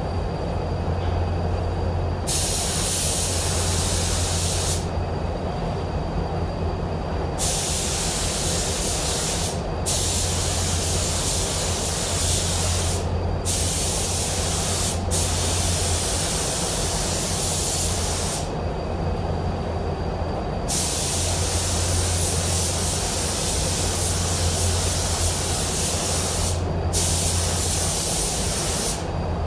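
Gravity-feed automotive spray gun hissing as it sprays paint in passes of a few seconds each, stopping briefly between passes. Under it runs the steady low hum of the paint booth's air system.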